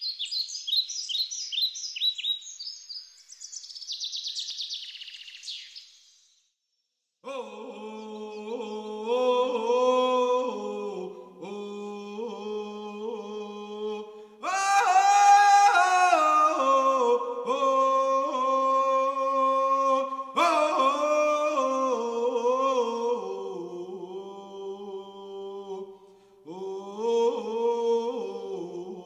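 A few seconds of quick, high, bird-like chirping, then after a brief silence a chant sung in long held notes that step up and down in pitch and swell louder about halfway through.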